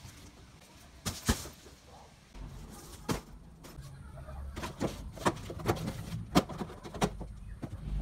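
Cardboard boxes and cartons being handled and shifted in a cluttered pile: a series of irregular sharp knocks and clatters, the loudest a little over a second in, with a low rumble underneath from a couple of seconds in.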